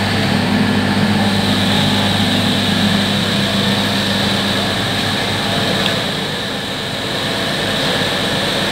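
Minangkabau Express diesel multiple unit standing at the platform with its engines running: a loud, steady drone with a low hum.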